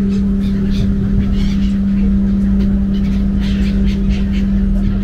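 Steady low drone of a Bosporus ferry's engine, a held hum over rumble, with seagulls calling over it.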